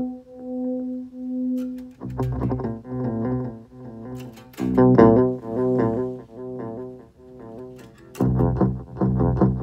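Musical notes played through a Donner Ultimate Delay pedal and heard from the speaker, each note repeating as evenly spaced echoes. About two seconds in, a denser run of notes and echoes starts. About eight seconds in, the repeats turn faster and shorter.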